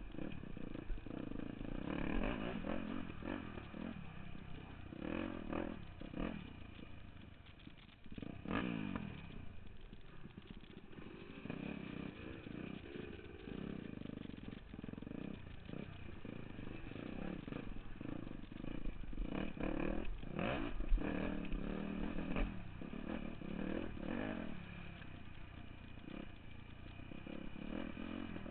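Dirt bike engine revving up and down with the throttle as the bike climbs over rock ledges, with a clear rev rising about eight seconds in. Knocks and rattles from the bike bouncing over the rock run through it.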